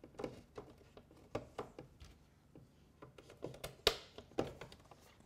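Plastic locking clips on a BlauFast oval duct connector being handled and snapped shut on the green double-corrugated duct: a string of light plastic clicks and rattles, with one sharp snap about four seconds in.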